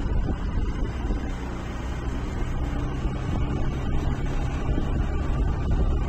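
Motor vehicle on the move: a steady low engine and road rumble.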